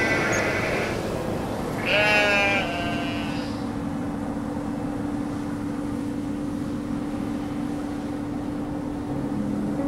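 Two wavering, bleat-like animal calls in the first few seconds, the second one louder, over a steady low hum and a faint rushing background.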